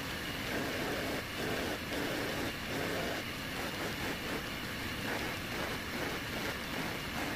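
A spinning wheel on a belt-driven lathe shaft running and rubbing against the outside of a turned wooden bowl, a steady whirring hiss that swells and dips irregularly as the bowl is worked against it.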